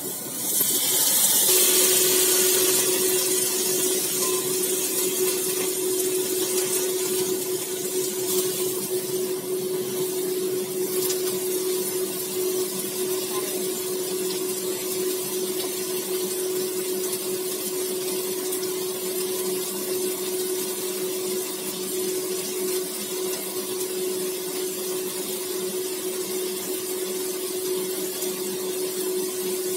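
Water poured into a hot wok of stir-fried long beans and tofu sizzles loudly, then settles into a steady simmering hiss. A steady hum runs underneath from about a second and a half in.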